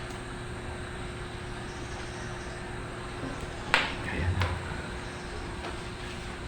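A single sharp click over a steady background hum, from handling a small plastic USB Type-C adapter.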